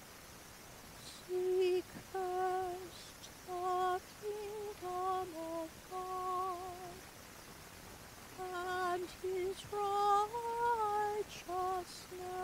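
A solo female voice singing a slow communion hymn without accompaniment, starting about a second in: short held notes with a light vibrato, moving by small steps, with brief breaths between phrases.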